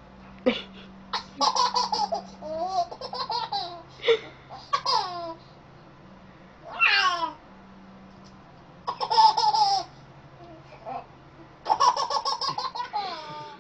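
A baby laughing in repeated bursts of high, pulsing giggles, one of them a falling squeal, over a faint steady hum.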